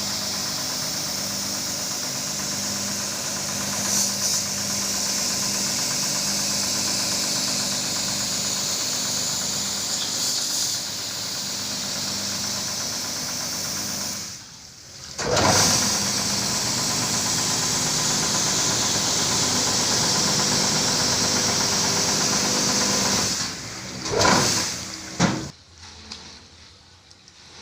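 Electric carpet-washing machine running steadily with a motor hum and a strong hiss. It cuts out about halfway through and starts again a second later, then shuts off near the end after two short surges.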